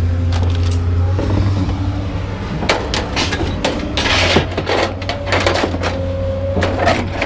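Scrap items being handled and shifted: a series of knocks and clatters, with a short scraping rush about four seconds in, over a steady low hum.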